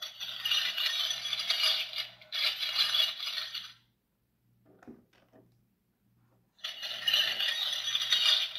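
A set of three keys on an animated haunted-doorknob Halloween prop rattling and jingling as the prop shakes them up and down, in two spells with a pause of about three seconds between, over a faint pulsing motor hum.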